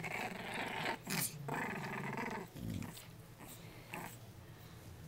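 Three-week-old English bulldog puppies growling at each other as they mouth and play-fight, louder for the first couple of seconds, then fainter.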